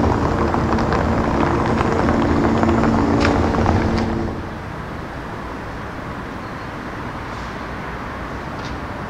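A motor vehicle's engine running close by with a steady hum, with a couple of sharp clicks, then dropping away abruptly a little over four seconds in, leaving a quieter steady street hiss.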